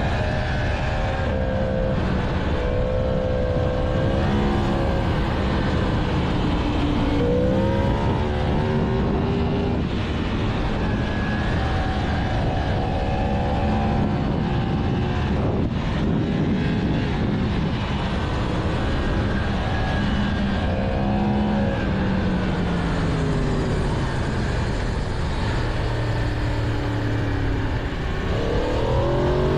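Yamaha MT-10's crossplane inline-four on its stock exhaust, under way: the engine note climbs and falls several times as the bike accelerates, shifts and rolls off, with a sharp climb in revs near the end. Wind rush runs under it throughout.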